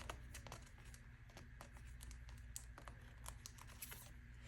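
Faint, irregular small clicks and light plastic crinkling from photocards and Polaroids being handled and slipped into plastic binder pages.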